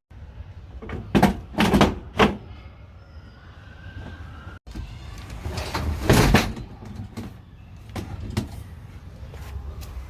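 Clunks and knocks of work-van doors and gear being handled: three sharp knocks early, a longer loud clatter about six seconds in like a door sliding shut, then softer knocks, over a steady low rumble.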